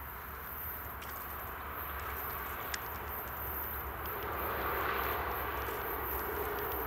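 Distant diesel freight locomotives approaching: a low, steady rumble that grows slowly louder, with a single faint click about three seconds in.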